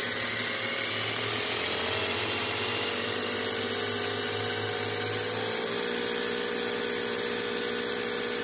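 IKEA FIXA cordless-drill motor and planetary gear driving a 3D-printed peristaltic pump, whirring steadily. Its pitch rises in steps as the PWM duty cycle is raised and the motor draws up to about 3 amps, which is a heavy load for it.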